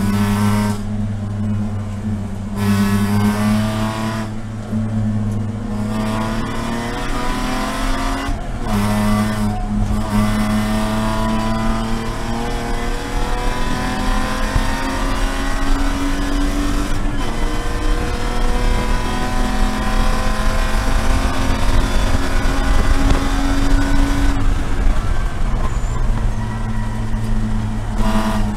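BMW Spec E46 race car's 3.0-litre straight-six heard from inside the cockpit, pulling hard at near-full throttle. Its note climbs in long rises and drops sharply at each of several upshifts.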